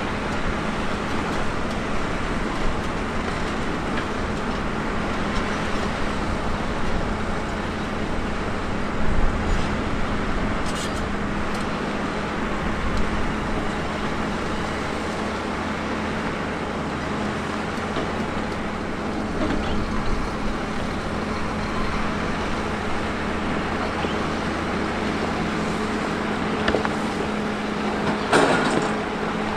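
Diesel engine of heavy earthmoving machinery running steadily under work, with a few sharp knocks, the loudest near the end.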